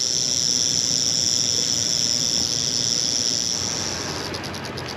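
Timber (canebrake) rattlesnake rattling its tail in a steady high buzz, a defensive warning. A little after four seconds in, the buzz slows into separate rapid clicks and fades.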